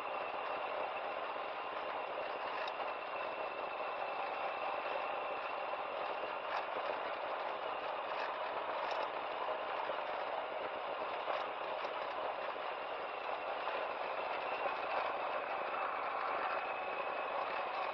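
Yamaha FJR1300's inline-four engine running steadily at low revs, with tyre and road noise from a rough unpaved surface. A few light clicks and rattles come through along the way.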